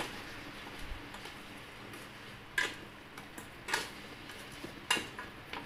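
Wooden spatula stirring pieces of duck in a stainless steel pan, with a few sharp knocks of the spatula against the pan, roughly a second apart.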